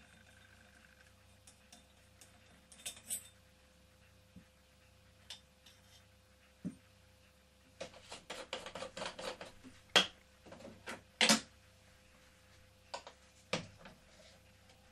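Small metal parts and tools clinking and tapping as they are handled and set down on a workbench: scattered clicks, a quick run of rattling clicks about eight seconds in, then two sharp knocks.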